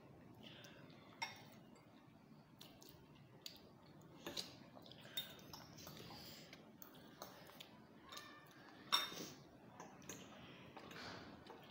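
Faint eating sounds: forks clinking and scraping against glass bowls and noodles being slurped, in scattered short clicks, the loudest a little after the middle.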